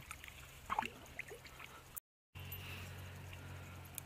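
Water splashing and dripping as a smallmouth bass is let go by hand into shallow water, with the loudest splash just before one second in. After a brief dropout about halfway through, a steady low hum takes over.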